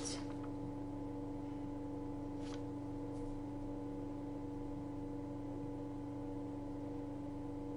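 Steady electrical hum with several fixed tones over a low hiss, with two faint clicks about two and a half and three seconds in.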